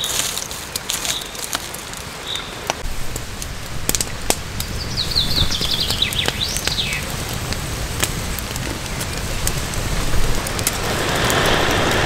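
Campfire crackling with scattered sharp pops over a steady patter of rain. About five seconds in, a bird sings a short descending trill. Near the end comes a breathy rush of someone blowing on a glowing ember.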